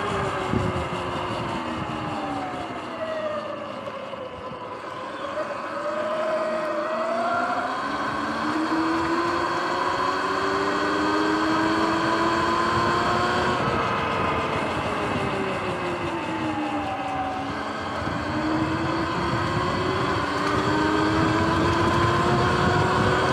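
Sur-Ron X electric dirt bike's motor whining as it rides, over a steady rush of wind and tyre noise. Its pitch sinks twice as the bike slows, about five seconds in and again past the middle, and climbs each time it speeds back up.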